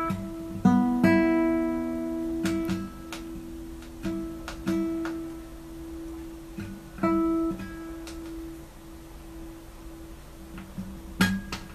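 A cat plucking the nylon strings of a classical guitar with its paw: single notes sound at irregular moments, each left to ring and fade, with a quick cluster of plucks near the end.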